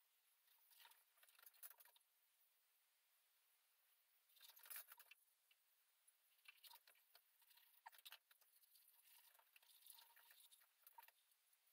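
Near silence with faint, scattered scratching and light taps from handwork at a wall, the most distinct cluster about five seconds in.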